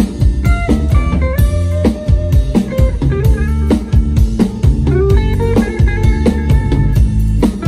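Instrumental music: a guitar plays a stepping melody over a PDP drum kit keeping a regular beat, with drum and cymbal hits.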